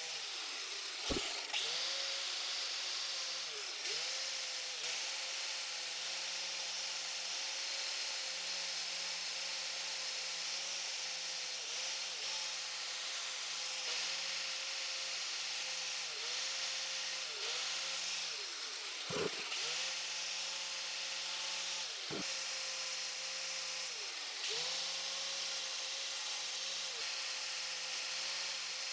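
Angle grinder with an abrasive disc grinding the steel jaws of a monkey wrench: a steady motor whine over grinding hiss. The pitch dips briefly every couple of seconds as the disc bites into the work, with a few sharp knocks, one about a second in and two more later.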